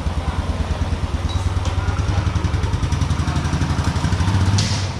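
Royal Enfield Classic 350's single-cylinder engine idling with a steady, even thump, swelling a little about four seconds in. A brief hiss near the end.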